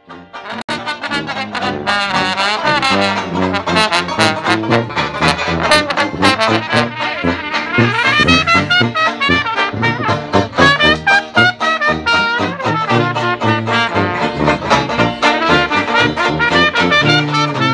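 A traditional jazz street band playing live: sousaphone bass under saxophone and clarinet lines, with a banjo strumming a steady beat.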